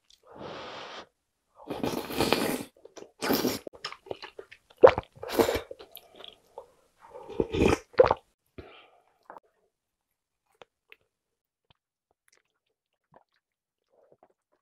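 Close-miked eating: slurping and chewing soft kalguksu noodles and sujebi dough flakes in spicy broth, in a run of bursts over the first nine seconds or so, with a few sharp clicks mixed in.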